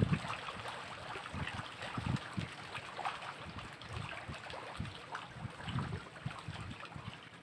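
Water splashing and lapping around floating fish-farm net cages while fish are fed, with irregular gusts of wind rumbling on the microphone.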